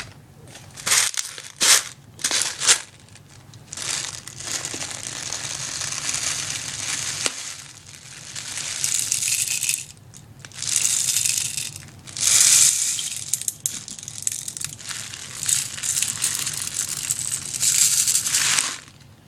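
Plastic airsoft BBs rattling and pouring while the gun is being loaded: a few short sharp rattles at first, then longer runs of rattling with brief pauses.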